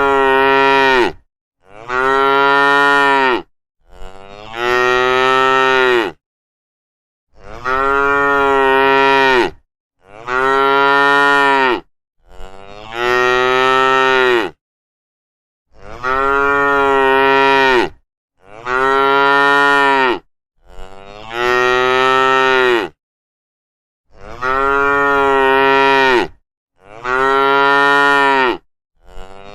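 A cow mooing over and over: about a dozen long, steady moos of about two seconds each, with dead silence between them. They come in groups of three, and the same three calls repeat every eight seconds or so, like a looped recording.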